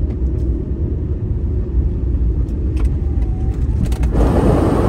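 Van driving on a wet road, heard from inside the cabin: a steady low rumble of engine and road noise. About four seconds in, a louder hiss sets in over it.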